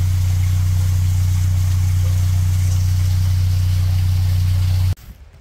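Narrowboat's diesel engine running steadily at tick-over, a loud constant low hum with a faint hiss over it, which cuts off suddenly about five seconds in.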